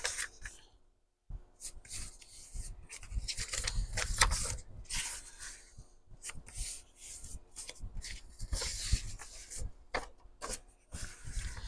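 Sheets of paper being handled and folded in half, with irregular rustling and rubbing strokes as the folds are creased.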